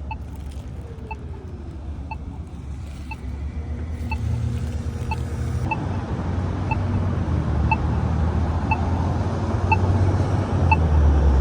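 Polara iNS accessible pedestrian signal push button sounding its short locator tick about once a second during the don't-walk phase. Road traffic rumbles past, getting louder toward the end.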